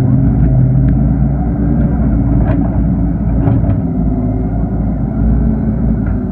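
Excavator engine running steadily at work, with a few short knocks about one, two and a half, and three and a half seconds in.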